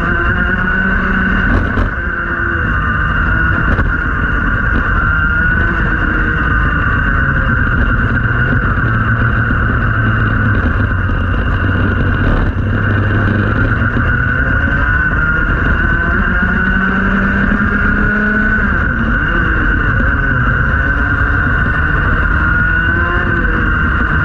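Rotax Max 125cc single-cylinder two-stroke kart engine running at racing revs. The revs fall to about half for a tight corner around the middle and climb back up afterwards.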